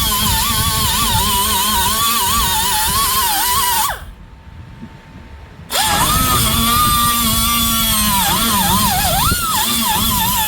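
A power tool's motor whining, its pitch wavering up and down as the trigger is worked. It stops for about two seconds in the middle, then spins back up with a rising whine.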